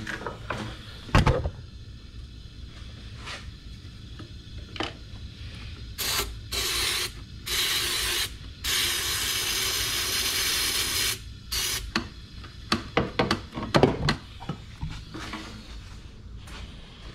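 Aerosol starter fluid sprayed into the intake of an engine that won't start, to test whether it is short of fuel. It comes as four hisses in a row, the last about two and a half seconds long. Scattered clicks and knocks of handling come before and after.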